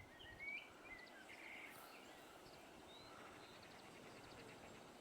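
Quiet outdoor background hiss with a few faint, short bird chirps in the first two seconds, then faint rapid ticking.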